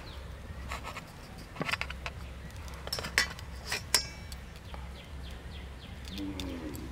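Kitchen knife cutting through slices of soft white bread on an aluminium plate, the blade tapping and scraping the metal in light clicks; about three and four seconds in come two sharp metallic clinks, the second ringing briefly, as the knife is laid down on the plate.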